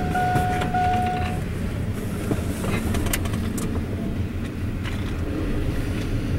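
CSX double-stack container train's cars rolling past with a steady low rumble and several sharp clanks. A brief high steady tone sounds in the first second and a half.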